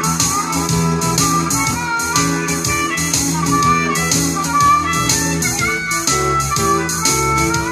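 Acoustic guitar strummed in a steady rhythm while a harmonica plays a bending melody over it, the harmonica cupped to a hand-held microphone and amplified. An instrumental passage with no singing.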